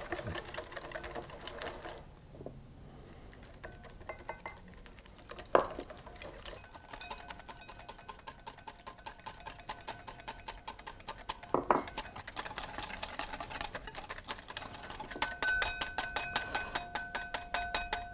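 Wire whisk beating egg yolk in a glass bowl as olive oil is drizzled in to emulsify a mayonnaise: a fast, regular clinking of the wires against the glass, several strokes a second, which grows louder and steadier in the last few seconds. Two sharper knocks come about five and a half and eleven and a half seconds in.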